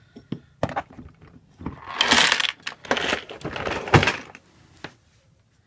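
Rummaging through a toolbox compartment: a few light clicks and knocks, then about two seconds of loud rustling and clatter as items are handled, ending with a sharp knock.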